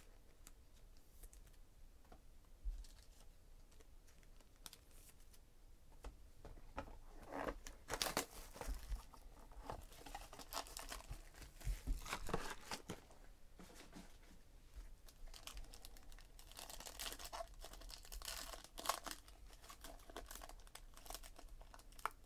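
A foil trading-card pack and its cardboard box handled and torn open by hand: irregular crinkles and rips of foil wrapper that start about six seconds in, after a faint start.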